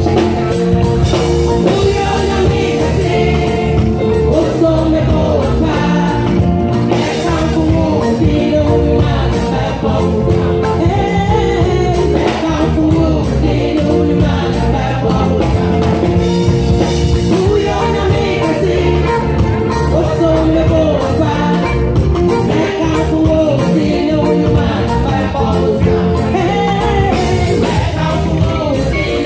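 Gospel choir singing, mostly women's voices, over a live band with a steady beat.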